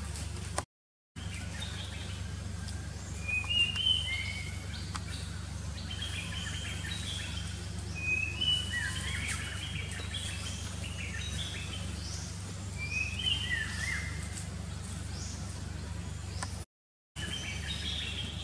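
Wild birds chirping in short clusters of quick whistles a few times, over a steady low hum of background noise. The sound drops out briefly twice.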